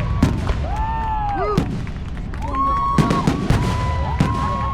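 Fireworks going off in a rapid run of sharp bangs. Several whistling tones, each about a second long, rise and fall over the bangs.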